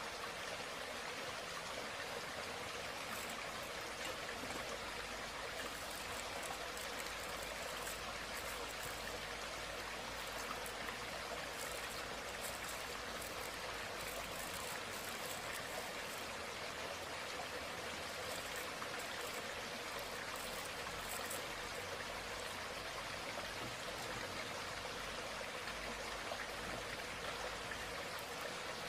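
A steady, even hiss throughout, with faint crackles of charred corn husks being peeled off grilled fish between about 6 and 21 seconds in.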